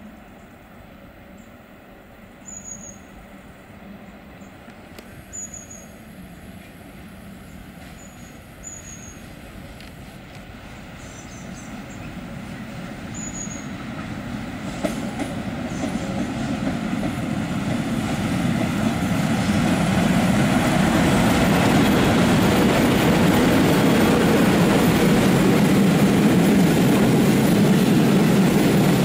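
Freight train hauled by an electric locomotive, growing steadily louder as it approaches over about twenty seconds, then a long string of open freight wagons rolling past with a steady, loud rumble of wheels on rail. A bird gives short high chirps every few seconds in the first half.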